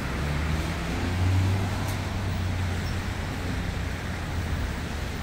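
Road traffic on a busy multi-lane city avenue: a steady hiss with a low engine hum that swells about a second in and then eases.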